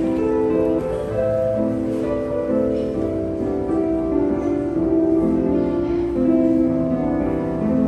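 Background music: a slow, gentle melody of long held notes.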